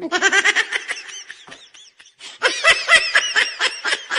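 Young men laughing hard in quick, high-pitched bursts, in two bouts with a short break about halfway through.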